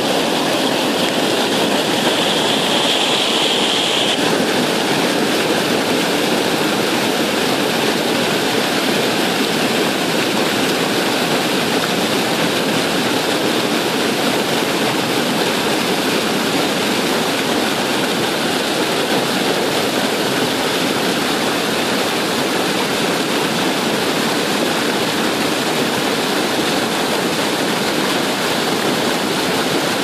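River water rushing over rocks in whitewater rapids, a loud, steady rush.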